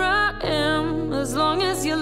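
Background song with a singing voice over held bass notes; the bass note changes about half a second in.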